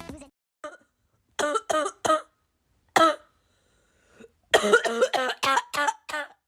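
Short cough-like vocal bursts from a person: a few scattered ones in the first half, then a quick run of about seven near the end.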